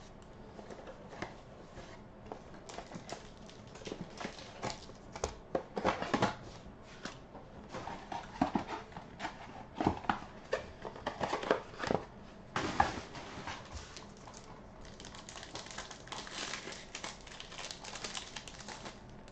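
Trading-card packs and their cardboard box being handled, with irregular taps, clicks and knocks. About fifteen seconds in, a denser crinkling starts as a foil card pack is torn open.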